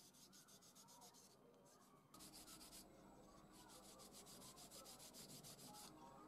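Cloth rag rubbed briskly back and forth over a wooden saw handle, working a wax finish into the wood: soft, quick, even strokes about five a second, with two short pauses in the first half.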